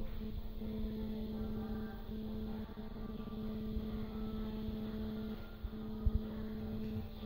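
A steady mechanical hum with a low rumble under it, its tone breaking off briefly a few times, and a couple of low thumps about six seconds in.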